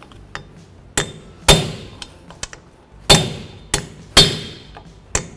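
Hammer blows on a prying tool wedged under the tin hub cover of a front wheel hub, driving it in to break the cover free: about six sharp, irregularly spaced metal strikes, each ringing briefly.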